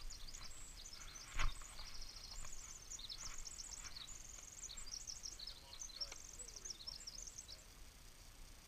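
A small songbird singing a long tumbling run of high, rapid chirps and trills that stops near the end. A single sharp thump about a second and a half in is the loudest sound.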